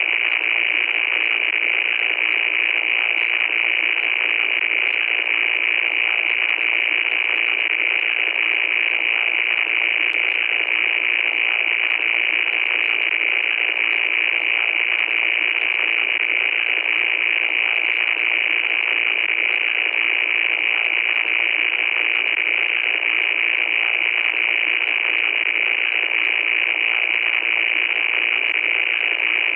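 Loud, unbroken static noise: a steady hiss with a high, piercing edge and faint crackles throughout.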